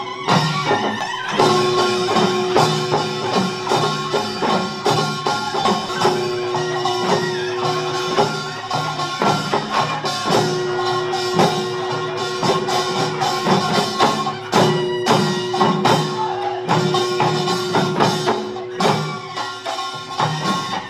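Korean pungmul (farmers' band) music for a sogo drum dance. Quick, dense drum and percussion strokes run under a long held note that breaks off and starts again every few seconds.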